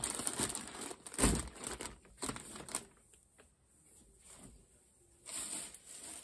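Plastic packaging of a muslin fabric pack crinkling as it is handled and slid across a cutting mat, with a thump about a second in as it is set down; after a quiet stretch there is more rustling near the end.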